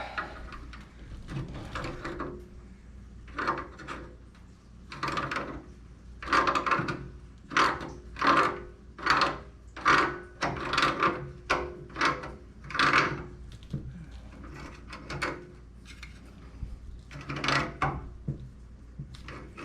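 A wrench tightening the threaded union nut on the pipe above a water heater's circulating pump, in a series of short rasping strokes that come roughly once or twice a second. The nut is being drawn down onto Teflon-taped threads to seal a leaking union.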